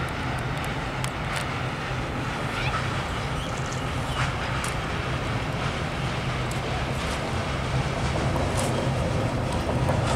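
Diesel locomotive approaching slowly along a steel truss railway bridge: a steady low engine drone that grows a little louder, with scattered light clicks and clanks.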